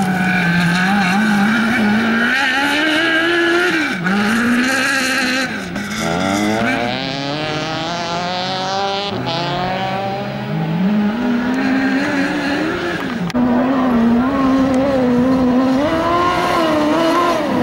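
Off-road race car engines revving hard on a dirt slalom course, their pitch climbing and dropping as the cars accelerate, shift and lift off through the turns. A long climb in pitch comes about halfway through, and about two-thirds in a different car's engine takes over abruptly.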